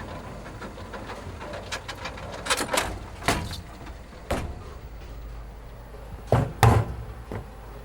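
A series of sharp knocks or bumps, about eight, irregularly spaced, over a steady low hum. The loudest are two close together near the end.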